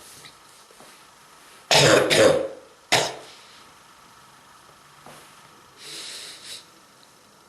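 A person coughing from strong bronchitis: a loud double cough about two seconds in, then one short cough a second later, and a quieter breath near the end.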